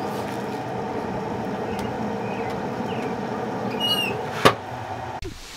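Metal grill lid squeaking briefly on its hinge, then shutting with a sharp clank about four and a half seconds in, over a steady rushing background noise.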